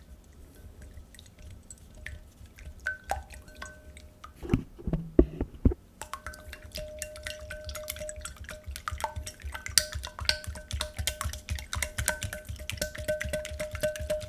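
Whisk mixing madeleine batter in a bowl: rapid wet clicking and tapping against the bowl that becomes steady and dense from about six seconds in, with a few heavier knocks just before.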